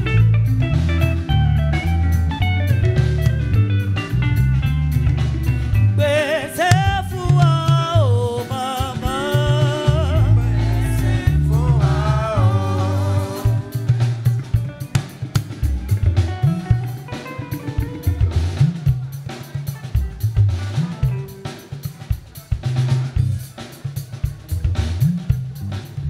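Live church band music: electric guitar and bass over a drum kit. A voice sings a wavering line in the middle, after which the drums come to the fore with sharp snare and rim hits over the bass.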